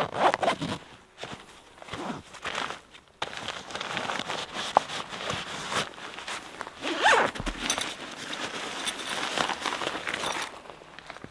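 Backpack zippers being pulled open and nylon fabric rustling as gear is taken out of the pack, in short scrapes at first and then a continuous rustle.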